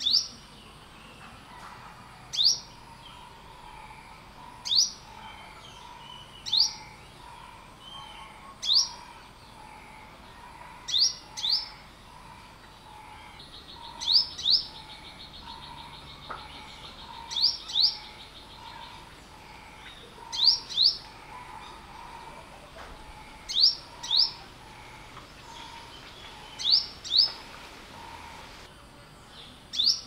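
Olive-backed sunbird calling: short, sharp, rising chirps, single at first and then mostly in pairs, about every two to three seconds. A short buzzy trill sounds in the background near the middle.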